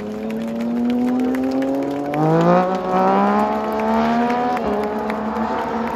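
Moto2 race bike's Triumph 765 cc three-cylinder engine accelerating away. Its pitch climbs steadily, then rises more quickly about two seconds in, and drops suddenly about four and a half seconds in.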